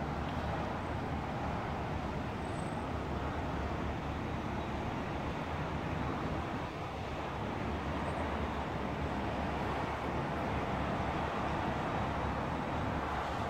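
Steady hum of distant city traffic, an even wash of noise with no separate events.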